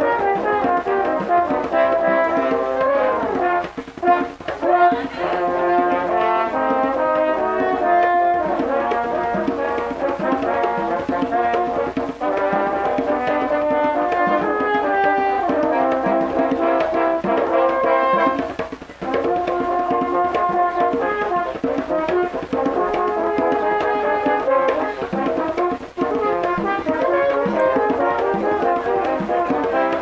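Quartet of French horns playing a lively Puerto Rican tune in harmony, with a bomba barrel drum keeping the beat. The music breaks off briefly a few times.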